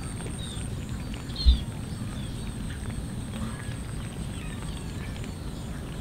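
Several cats eating cooked rice off a metal tray, with faint chewing and smacking clicks over a steady low rumble. A single low thump about one and a half seconds in is the loudest sound.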